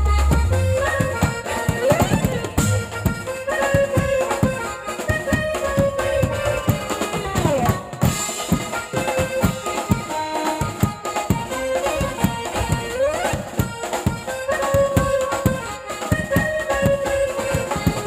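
Electronic keyboard playing a lead melody with a few sliding notes, over steady drumming from a banjo-party street band.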